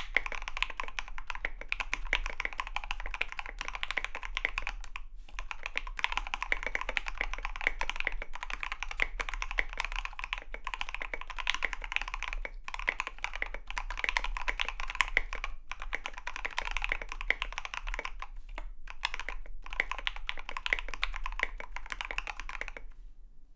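Fast, continuous typing on a KBD75v2 custom mechanical keyboard with a brass plate, Krytox 205g0-lubed L7 switches and SA-profile keycaps, broken by a few short pauses. The typing stops near the end.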